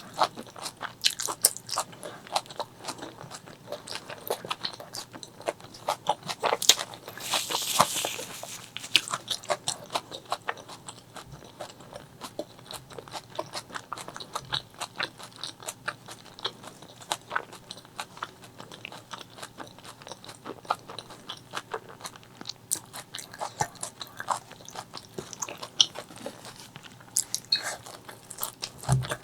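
Close-miked chewing and biting of spicy chicken liver, gizzard and rice: a dense, irregular run of wet, crunchy clicks, with a brief hiss about seven seconds in.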